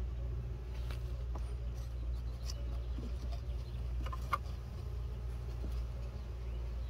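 Wooden hive frames and a metal hive tool clicking and scraping against a wooden hive body as the frames are worked, with a sharper knock a little after four seconds in, over a steady low rumble.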